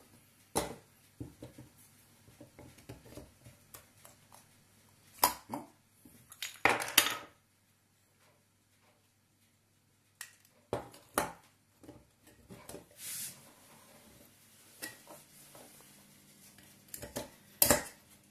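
A knife prying plastic parts out of a brass water-meter body, giving scattered sharp clicks, clinks and scrapes of metal on plastic and brass. The clicks come in clusters, the loudest a little past the middle and again near the end, with a nearly silent stretch between.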